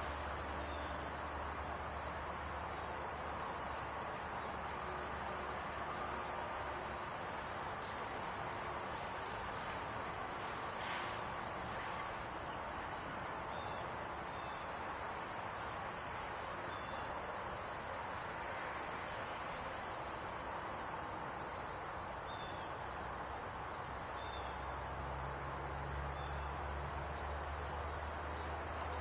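Steady, high-pitched chorus of insects, unbroken and even in level.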